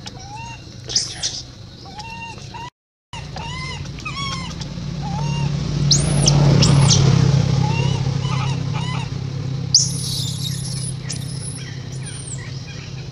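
Infant long-tailed macaque crying: a string of short rising-and-falling coos, broken by a few shrill screams about a second in, around six seconds in and near ten seconds. A steady low hum runs underneath, and the sound cuts out briefly near three seconds.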